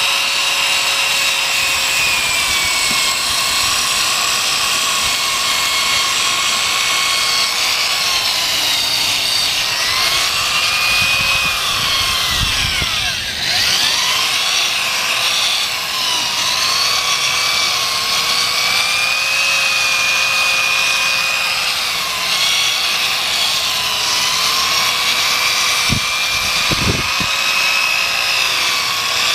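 Right-angle power tool spinning an 800-grit sanding disc against a plastic headlight lens: a steady motor whine whose pitch sags and recovers as the load on the disc changes. About halfway through, the whine dips sharply and quickly picks back up, and a few low knocks come near the end.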